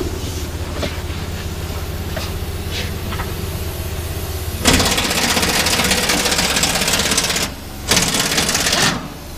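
A steady low machine hum, then a pneumatic impact wrench rattling loudly in two bursts, one of about two and a half seconds and a shorter one of about a second, as it runs bolts off the fuel tank mounting.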